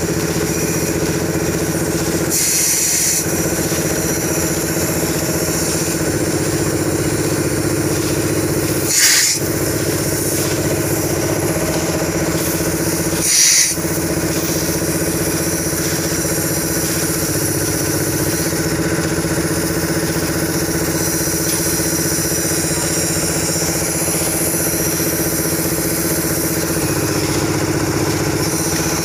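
High-pressure borewell air compressor running steadily while air and muddy water blast out of the bore's discharge pipe with a constant hiss. Two brief, louder gushes come about nine and thirteen seconds in.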